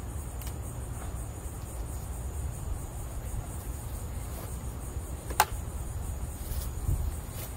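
Insects chirring steadily over a low steady rumble, with one sharp click about five seconds in.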